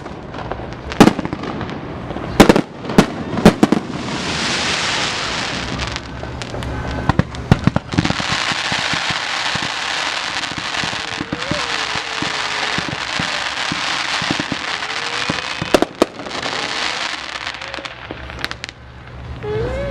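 Fireworks going off: a quick run of sharp bangs, then a long stretch of steady hissing and crackling with a couple more single bangs.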